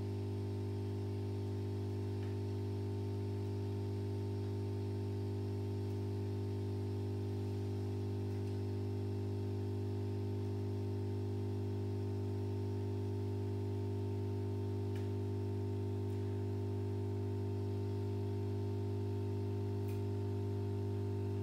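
Steady electrical hum: a low tone with a stack of higher fixed tones above it, unchanging throughout, with a few faint clicks.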